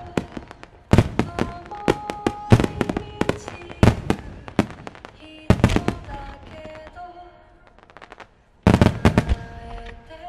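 Starmine fireworks display: rapid volleys of shells bursting in sharp bangs, coming in dense clusters. The barrage thins out briefly in the second half, then a loud new volley starts abruptly near the end.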